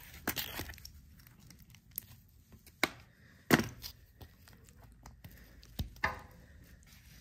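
Metal parts handled on a workbench: a grease-gun coupler and a zerk fitting on a steel bushing clicking and clinking as the coupler is pulled off and pushed back on. About half a dozen short sharp clicks spread over several seconds, the loudest about three and a half seconds in.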